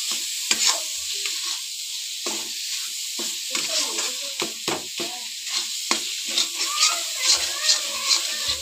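Moist, freshly ground coconut sizzling in ghee in a wok while a metal spatula stirs and scrapes it against the pan in quick, irregular strokes. The steady sizzle is the coconut's water cooking off as it roasts.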